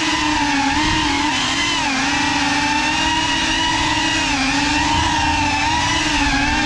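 GEPRC Cinelog 35 FPV cinewhoop's motors and ducted propellers whining in flight, heard through its onboard camera. The pitch wavers with the throttle, dipping briefly about two seconds in and again about four and a half seconds in.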